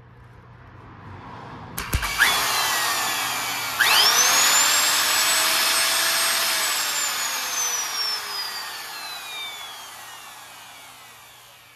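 Triton TRJ001 router's motor run with its wiring bridged directly by pliers, bypassing the speed controller. A few sharp clicks as contact is made, then the motor runs up with a whine that rises steeply in pitch about four seconds in, holds, and then winds down slowly with falling pitch and level. The motor runs when bypassed, the sign that the fault lies in the speed controller.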